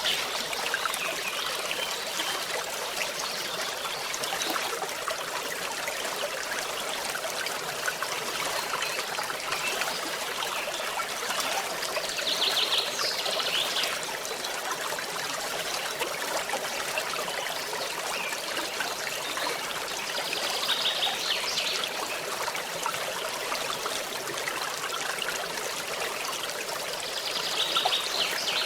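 A forest stream flowing steadily, a constant rush and trickle of water. A short, high, rapid trill cuts in three times, about every eight seconds.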